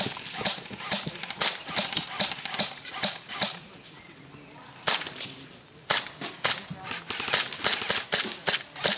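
Airsoft guns firing: a run of sharp pops in the first few seconds, a short lull, then single shots and quick strings of pops from about five seconds in.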